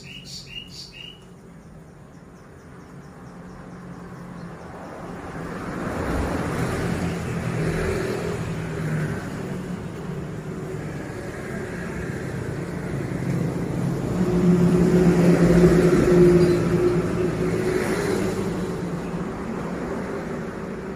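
A motor vehicle's engine hum and road noise, swelling slowly, loudest about three-quarters of the way through, then easing off. A few bird chirps come at the very start.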